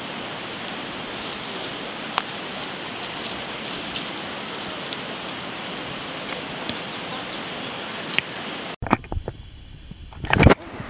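Steady rushing outdoor ambience, an even hiss with a few short high chirps over it. Near the end it cuts off abruptly, giving way to quieter sound with a couple of sharp knocks.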